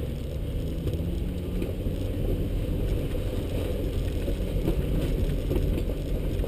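Jeep Wrangler heard from inside the cab while crawling over a rough dirt trail: a steady low engine sound with irregular rattles and knocks from the body and suspension.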